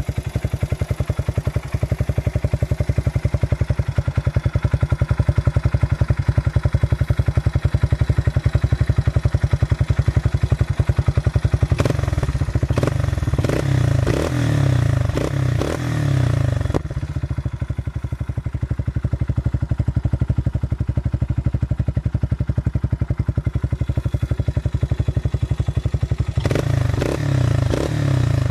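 Quad engine running through an SC Project oval carbon aftermarket exhaust, a steady rapid firing pulse. The note grows heavier and choppier twice, from about twelve seconds in and again near the end.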